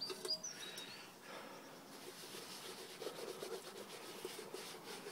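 Cloth rubbing Autosol metal polish over the soot-blackened base of a stainless steel billy can, a steady scratchy rubbing.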